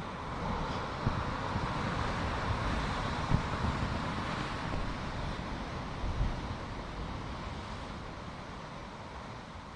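Wind buffeting the microphone in irregular low bumps, over a rushing noise that swells over the first few seconds and then slowly fades.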